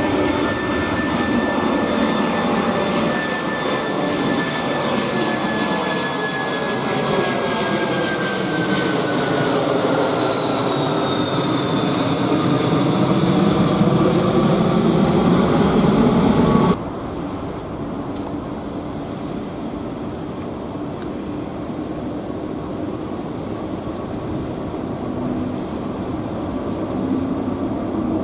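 Boeing 747 jet engines at takeoff power as the freighter passes, a loud rush with a high whine that slides down in pitch. About 17 s in it cuts off abruptly to a quieter, steady rumble.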